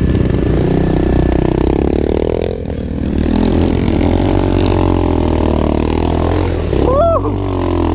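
Single-cylinder four-stroke SSR 125 pit bike engine revving and working under load while riding through a muddy trail puddle, backing off briefly a few seconds in, then pulling again. A short vocal shout comes near the end.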